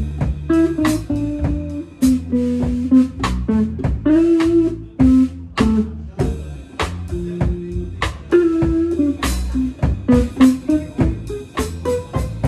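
Live band playing: guitar lines over a low bass line, with a drum kit keeping time in regular drum and cymbal hits.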